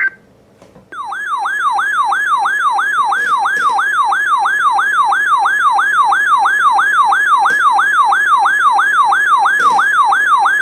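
Emergency alert attention tone: a loud siren-like warble, sweeping rapidly up and down about three times a second, starting about a second in. It signals the start of a new weather warning broadcast.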